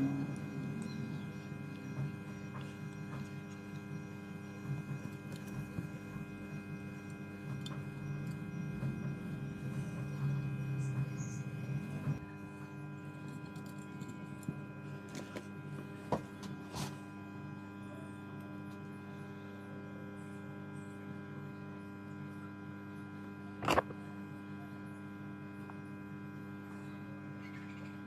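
Steady electrical mains hum, a constant buzz made of several even tones. A few light clicks and taps come from handling the phone circuit board and its holder clamps, with one sharper click near the end.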